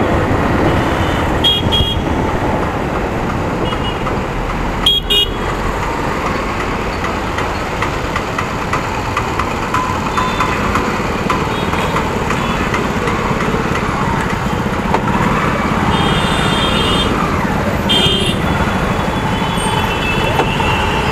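Motorcycle riding in city traffic: steady road and engine noise with wind on the microphone, as the bike slows to a crawl in a jam. Vehicle horns honk several times: twice briefly early on, around five seconds in, and again in a longer run of honks late on.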